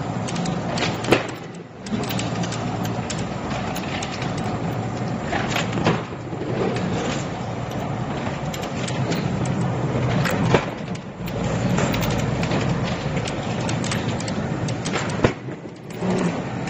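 KSWL1120 roll laminating machine running steadily as film is pressed onto board. Three or four sharp cracks come a few seconds apart.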